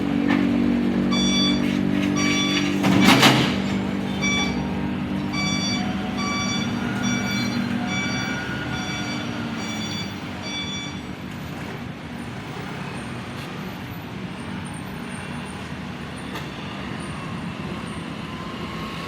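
Heavy diesel machinery running, with a reversing alarm beeping about once a second for the first ten seconds or so. A short, loud hiss of air sounds about three seconds in, and the engine sound fades after about eight seconds.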